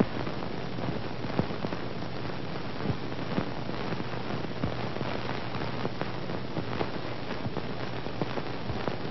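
Steady crackling hiss with scattered clicks and pops: the surface noise of an old, worn recording, with no music yet.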